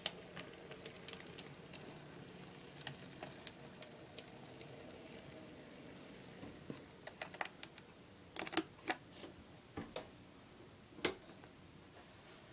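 Small model locomotive running along layout track: irregular sharp clicks from its wheels crossing rail joints and turnouts, sparse at first and louder and closer together in the second half, over a faint steady hum.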